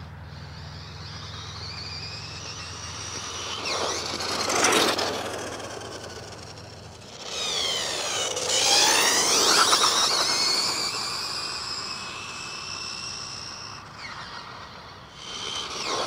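ARRMA Typhon 6S V5 RC buggy's brushless motor and drivetrain whining at high speed, rising in pitch as it accelerates. It makes several fast passes, the loudest about halfway through, with the pitch dropping sharply as it goes by.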